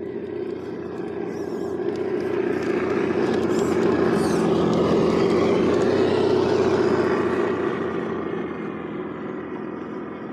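A 1/10-scale RC crawler truck driving over dry leaf litter: a steady motor and drivetrain drone with crunching from the tyres, growing louder as it passes close about a third of the way in, then fading as it climbs away.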